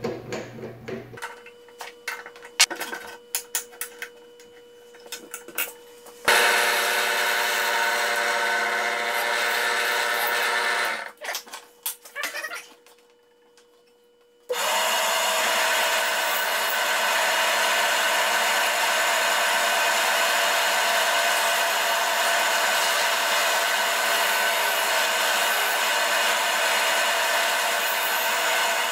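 Benchtop drill press running, its 5/32-inch bit drilling down through a wooden block. A few light clicks of the chuck and bit being handled come first; the motor starts about six seconds in, stops for a couple of seconds near the middle, then runs steadily again to the end.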